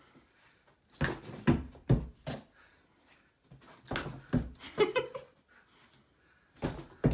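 A large ball thudding on carpeted stairs and off a border collie blocking it, in three bursts of knocks: about a second in, about four seconds in, and just before the end.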